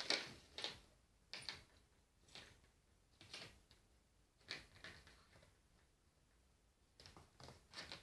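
Faint, scattered scrapes and ticks of a dry twig skittering across a wooden floor as a kitten bats and pounces on it. The strokes come about once a second and grow busier near the end.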